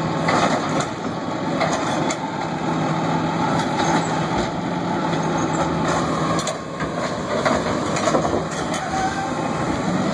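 Automated side-loader garbage truck running at the curb, its engine and hydraulics working as the side arm lifts a wheeled trash cart and tips it into the hopper. A steady engine hum drops away about six seconds in, and sharp knocks and clatter follow as the cart is dumped.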